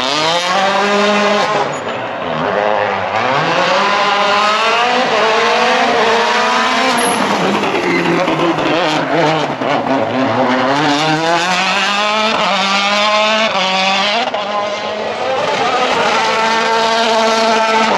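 Citroën DS3 WRC rally car's 1.6-litre turbocharged four-cylinder engine revving hard, its pitch climbing in repeated rising sweeps that each drop back as it shifts up through the gears.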